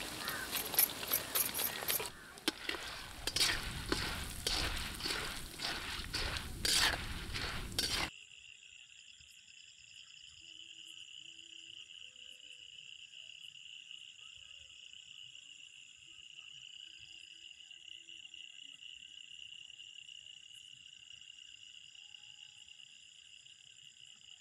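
Corn kernels sizzling and crackling in hot oil in an iron kadai, with sharp clicks. After about eight seconds the sizzle cuts off suddenly, and a quieter steady chirring of insects remains.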